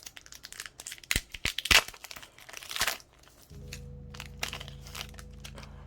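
Foil booster-pack wrapper crinkling and tearing in short rustles and rips, loudest a second or two in; from about halfway a steady low background music bed takes over.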